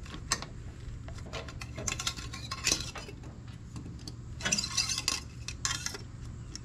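Metal intercooler pipe and hose clamps clinking and rattling as the pipe is worked into a coupler at the turbocharger. Scattered sharp clinks, busiest around two seconds in and again around five seconds in.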